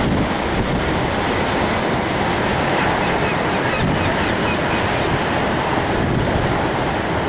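Heavy storm surf breaking along a rocky shore, a steady loud rush of waves with wind buffeting the microphone.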